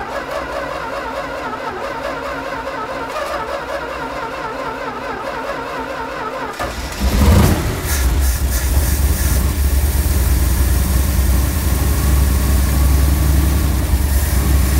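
1965 Dodge A-100's 318 V8 cranking on the starter while flooded, then catching about six and a half seconds in with a sudden loud burst and settling into a steady run, wicked rich.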